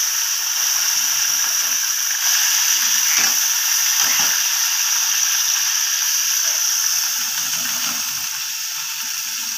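Washed chopped vegetables sizzling steadily in hot oil in a steel karahi, the hiss easing slightly near the end. A couple of light knocks sound about three and four seconds in.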